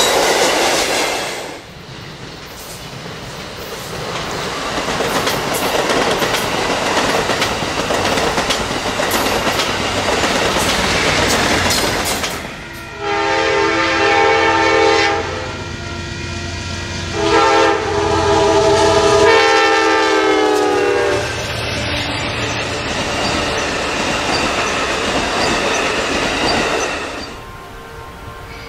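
Passenger train rolling on the rails with wheel rumble and clatter, then a diesel locomotive's chord air horn sounding two long blasts about halfway through, the second drooping slightly in pitch at its end.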